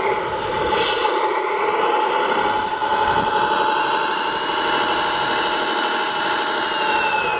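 Electric drive motor and gearbox of an RC scale Jeep Wrangler crawler whining steadily as it grinds slowly through loose sand, with a high whine that falls slightly near the end.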